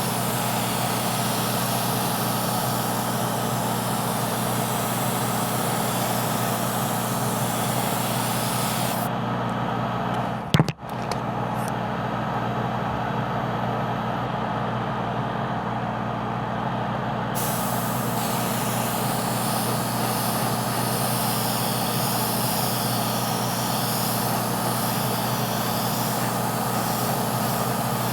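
An airbrush spraying paint, with its air compressor running: a steady hiss of air over the compressor's even hum. The hiss stops about nine seconds in and returns about eight seconds later, while the hum carries on. A single sharp knock comes just after the hiss stops.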